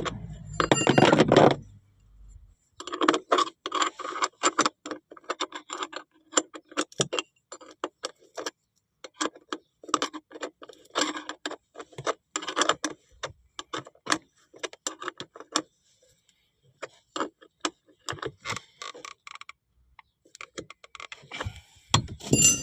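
Rapid ratchet clicking in several runs with short pauses between, from work on a seat belt mechanism being refitted; a couple of louder knocks come near the start and near the end.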